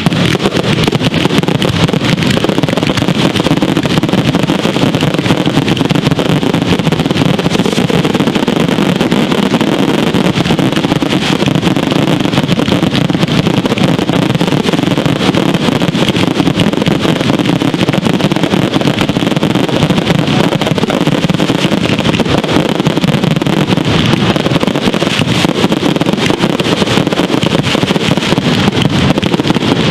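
Ground fireworks going off at close range: fountains and rapid-firing cakes making a loud, dense, unbroken roar full of fine crackling, with no single big bang standing out.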